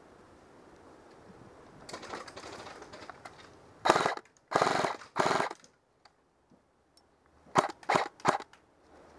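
Airsoft gun firing in bursts: three longer bursts about four seconds in, then four short, quick bursts near the end.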